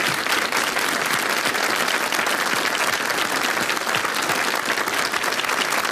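Studio audience applauding steadily, many hands clapping at once to welcome a guest.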